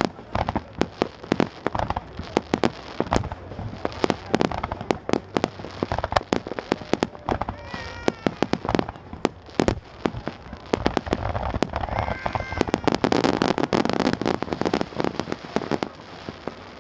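Aerial firework shells bursting in rapid succession, many sharp bangs one after another, thickening into a dense stretch of crackling pops in the second half.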